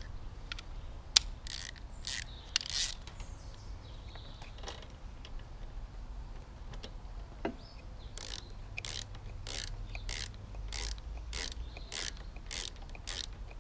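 Spark plug spanner clicking as a new spark plug is tightened into a lawnmower engine. A few scattered clicks and knocks come first, then from about eight seconds in a run of evenly spaced clicks, about two to three a second.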